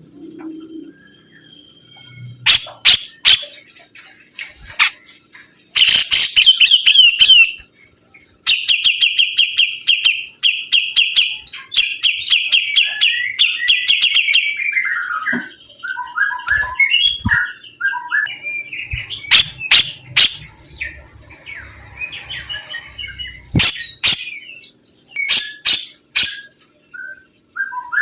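A songbird singing persistently in a long varied song. It runs high, fast trills and rattles with sharp clicking chips, and from about halfway through it switches to lower, separate whistled notes.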